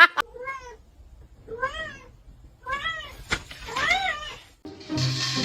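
Domestic cat meowing four times, about a second apart, each call rising and then falling in pitch, with a single sharp click between the last two. Near the end the meows stop and a steady hiss takes over.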